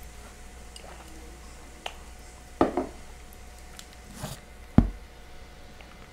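Knocks and clunks of a plastic tumbler being handled against a table: a light tap, then a double knock about two and a half seconds in and a single loud knock near five seconds, with a short breathy noise just before the last knock.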